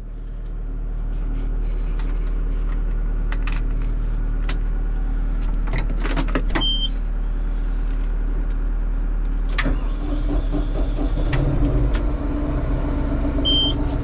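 John Deere 5075M tractor's four-cylinder diesel engine starting up and settling into a steady idle, heard from inside the cab; it starts easily after sitting unused for two or three weeks. Two short high beeps and a few clicks sound over the engine.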